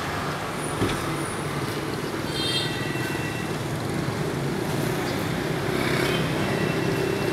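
Steady rumble of traffic and running engines.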